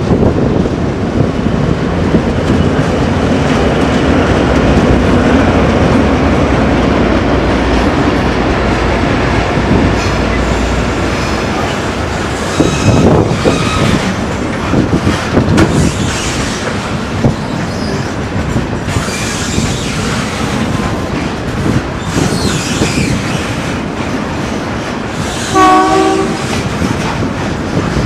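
B-class diesel-electric locomotive B75 running past under power, a loud low engine drone for the first ten seconds or so. Then loaded grain hopper wagons roll by, their wheels clattering and knocking over rail joints and points, with a brief pitched tone near the end.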